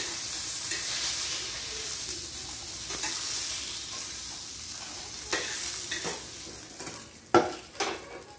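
Hot oil sizzling in a frying pan while a metal spatula stirs and scrapes against it, with a few sharper scrapes and knocks in the second half, the loudest one near the end.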